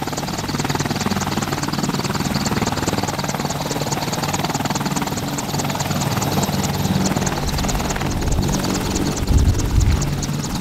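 Helicopter running, its rotor chopping in a fast, even beat over a steady engine drone, with a louder low rumble near the end.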